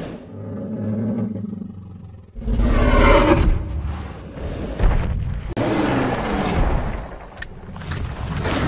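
Dinosaur roar sound effects: a low growl, then a sudden loud roar a little over two seconds in, and a second roar that falls in pitch about halfway through, over deep booming rumble.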